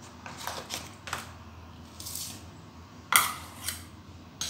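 A steel spoon clinking and scraping against stainless-steel bowls in a run of light clinks, with one sharp, loud clink about three seconds in.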